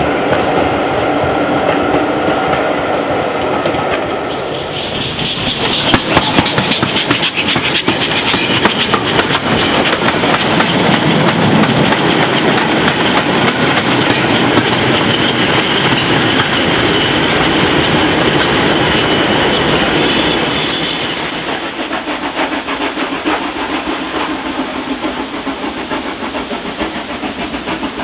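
Short-wheelbase wooden goods wagons rolling close past, their wheels clattering over the rail joints in a fast, loud clickety-clack from about five seconds in until about twenty-one seconds in. Before that a train runs more quietly with a few steady held tones; after it the level drops to a quieter, steadier train sound.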